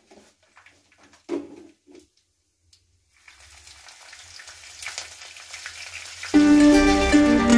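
Mustard and cumin seeds frying in hot oil in a clay pot. After a few light knocks and a short pause, the sizzle builds as green chilli goes into the oil. Strummed ukulele-style music comes in loudly near the end.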